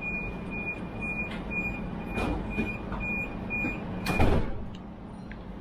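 Train passenger-door warning beeping, a repeated high-pitched beep about twice a second, followed about four seconds in by the sliding doors closing with a thud, over the steady hum of the standing train.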